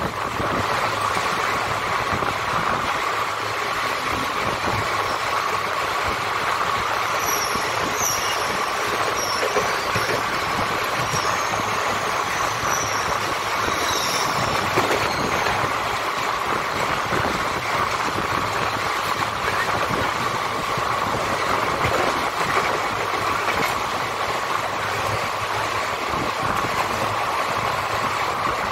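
Indian Railways passenger coaches of the 18478 Kalinga Utkal Express running along the track, a steady rolling rumble of wheels and rattling heard from an open coach doorway, with a few short high squeals in the first half.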